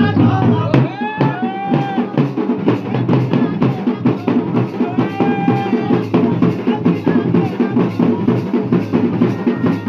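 Garhwali band baja and dhol-damau dance music: a fast, dense drum beat under a melody whose pitch bends up and down.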